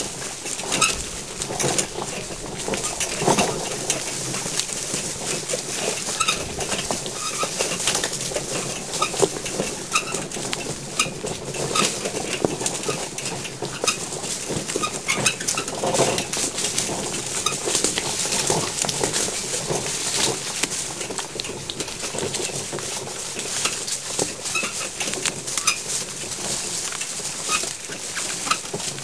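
A pony pulling an iBex wheelchair carriage over a rough, rutted track: a continuous clatter of irregular knocks and clinks from the hooves and the rattling carriage.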